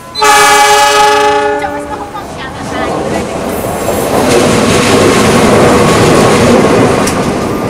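A KAI diesel-electric locomotive sounds one loud horn blast of about two seconds as it enters. Then the locomotive and its passenger train run past at very close range, with a steady loud rumble of engine and wheels and rattling over the rails.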